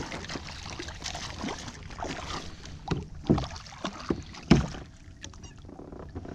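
A hooked largemouth bass being landed at a kayak: water splashing and irregular knocks and thumps. The loudest knocks come about three and four and a half seconds in.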